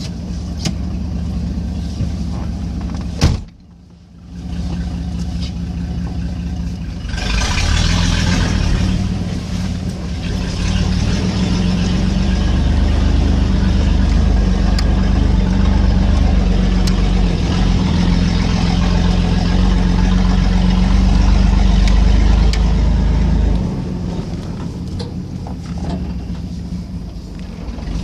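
1992 Chevy Silverado 1500 pickup's engine running as the truck drives through mud. It gets louder about seven seconds in, holds, then eases off near the end. A sharp click about three seconds in is followed by a brief dropout.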